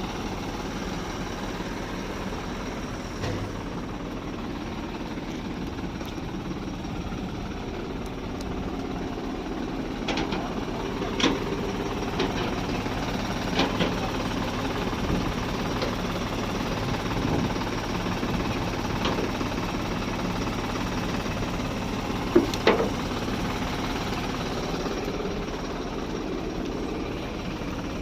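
Heavy vehicle engine running steadily, with a few sharp metallic clanks and knocks, the loudest a double knock about two-thirds of the way through.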